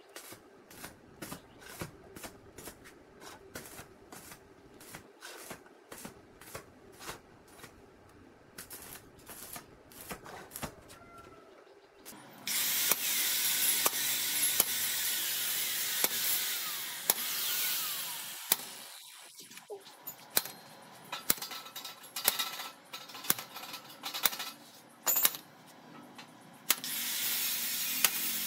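Marking out square steel tubing: light metallic clicks and taps, about two a second, as a marker and steel square are set against the tubes. About halfway through a steady scratchy hiss sets in, a steel scriber drawn across the metal, with more scattered clicks.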